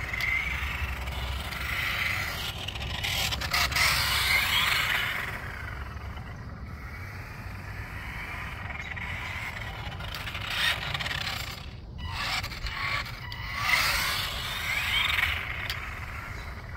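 Small electric motor of a remote-control toy tow truck whining, its pitch rising and falling as the truck speeds up and slows, with the tyres scraping over plastic court tiles. The sound swells in three spells, with a few sharp clicks.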